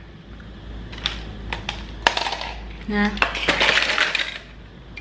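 Hard plastic toys clicking and clattering against each other in a plastic basket as it is handled. There are a few separate clicks at first, a short pitched note near the middle, then a second of dense rattling.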